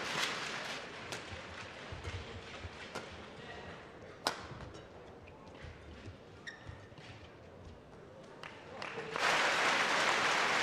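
Badminton rackets striking the shuttlecock in a rally, sharp cracks roughly a second apart. About nine seconds in, arena crowd applause breaks out and becomes the loudest sound.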